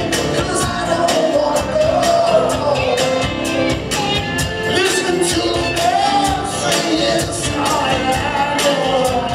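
A live rock-and-soul band with a horn section playing, with drums keeping a steady beat under a melodic lead line.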